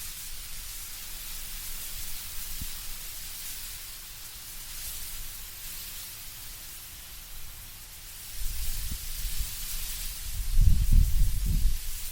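Wind blowing through trees with leaves rustling, a steady hiss. About two-thirds of the way in, deeper gusts of wind come in and grow louder toward the end.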